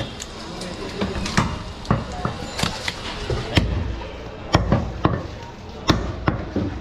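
Butcher's cleaver chopping goat meat on a round wooden chopping block: a dozen or so sharp, irregular chops, about two a second.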